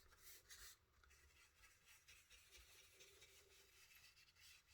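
Near silence, with faint scratchy rubbing strokes of colour being worked onto stamped card, loudest in the first second.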